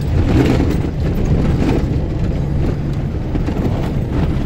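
Vehicle engine running and the cab rumbling as it drives over a bumpy, rutted dirt track, with scattered small knocks, heard from inside the cab.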